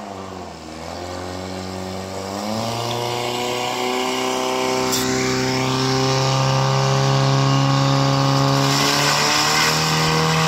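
Portable fire pump engine run up to high revs, its pitch climbing in steps and then holding a steady, loud drone as it drives water through the hoses. Near the end a hiss of water jets from the nozzles joins in.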